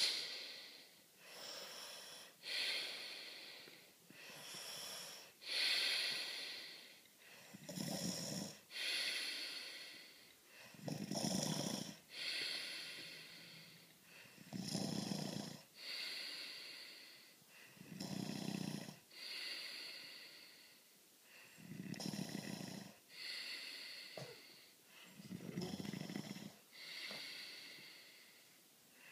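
A sleeping person snoring in a steady rhythm, about one breath every three and a half seconds. Each low snore alternates with a hissing breath; the first few breaths are only hissing, and the low snores start about eight seconds in.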